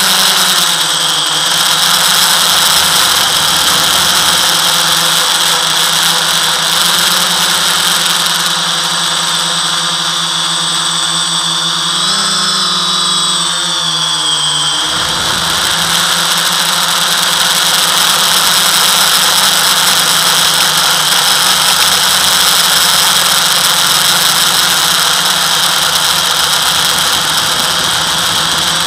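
FPV quadcopter's brushless motors and propellers running in flight: a steady high-pitched whine, with the motor pitch bending up and down for a few seconds about halfway through.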